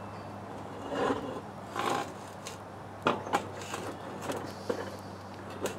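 Cast iron Dutch oven being turned in place over hot coals: two scrapes of the pot shifting on its metal base about one and two seconds in, then several sharp metallic clinks and knocks from the wire bail handle and pot.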